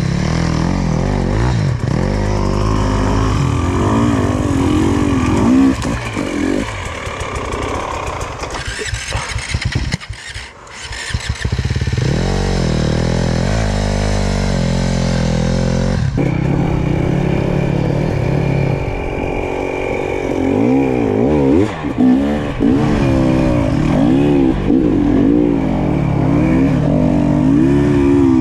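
Enduro dirt bike engine revving and blipping under constant throttle changes as it is ridden over rough offroad terrain, its pitch rising and falling. About ten seconds in the engine sound drops away briefly before picking up again.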